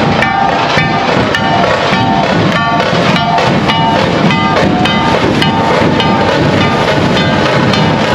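Dhol-tasha troupe playing: dhol drums beating a steady rhythm, with ringing metallic strikes from a large hanging gong.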